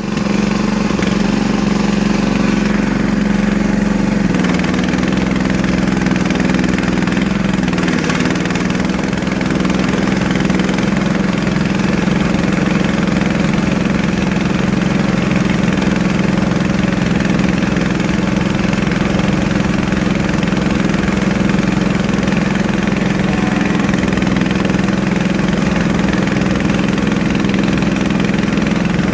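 An engine running steadily with a strong, even low hum, growing louder at the very start.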